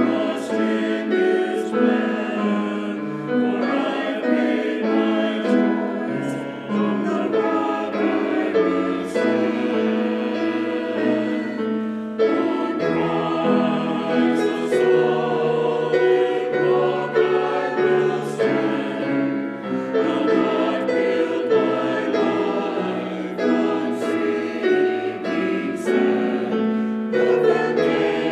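A small mixed church choir of men's and women's voices singing together.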